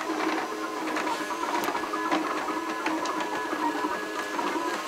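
Makerbot 3D printer running: its stepper motors whine in several steady tones that shift in pitch as the print head moves, with light ticks.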